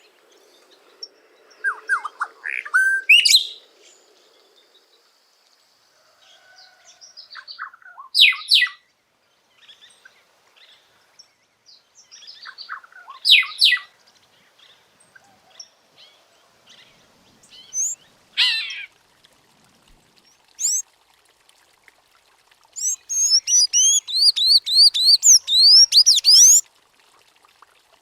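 Variable oriole (encontro) singing scattered short whistled phrases with pauses between them. Near the end a sayaca tanager takes over with a fast run of high, squeaky upslurred notes.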